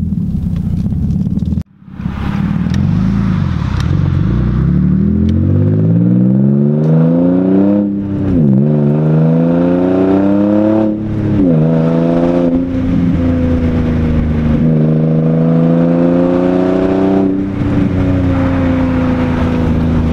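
Infiniti G35 coupe's 3.5-litre V6 running with no exhaust system fitted, heard from inside the cabin: the engine note climbs steadily as the car accelerates, drops sharply on two upshifts about eight and eleven seconds in, then settles into a steady cruise.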